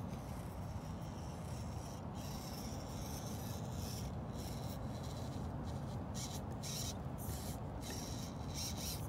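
Axial SCX24 micro RC crawler's small electric motor and drivetrain whining in short spurts as it crawls over rocks, with a steady low rumble underneath.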